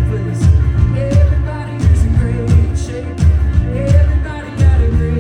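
Live band playing a rock song with a lead singer: a steady kick-drum beat about every three-quarters of a second, cymbal hits, and a sung melody over it.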